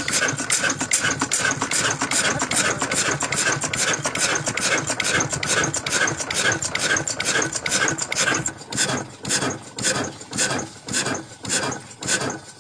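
Old slow-speed single-cylinder diesel engine with a heavy flywheel running, giving a steady rhythm of exhaust beats. From about eight seconds in the beats slow to roughly two a second and stand apart more clearly.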